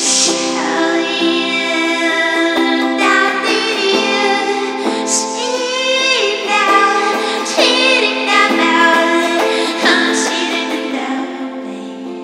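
Music: a woman singing close into a microphone over steady held instrumental notes, the whole fading down near the end.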